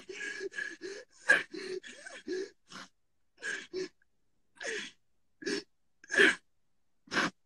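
A man sobbing: short gasping breaths and choked sobs in broken bursts, with a longer pause in the middle.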